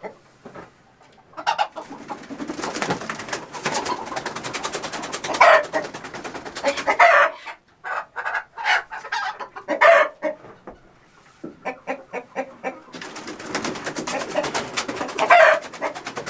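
Chickens squawking and clucking in alarm as they are grabbed off the roost at night, in two long flurries with rapid wing-flapping and a few loud shrieks.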